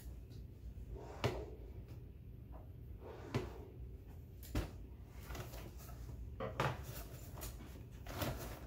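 A few sharp knocks and clunks, about a second or two apart, then softer rustling: an office chair being moved and sat in at a desk, and things being put down on it.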